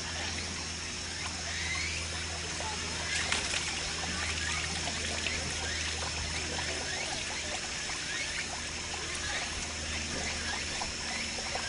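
Water trickling and splattering steadily, with many small drips and splashes over a steady low hum.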